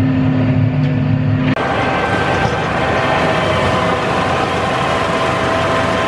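Compact tractor engine running under load while driving a PTO rotary brush cutter through long grass, a steady mechanical drone. About a second and a half in, the sound changes abruptly to a noisier running with higher steady whining tones.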